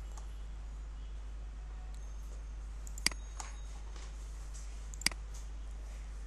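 Computer mouse clicks: two sharp clicks about two seconds apart, each followed by a fainter click, over a steady low hum.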